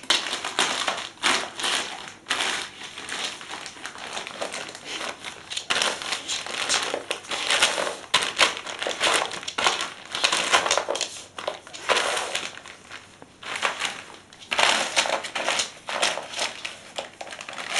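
Clear plastic bag crinkling and crackling in irregular bursts as a shar-pei dog paws and noses at it. There is a short lull about three-quarters of the way through.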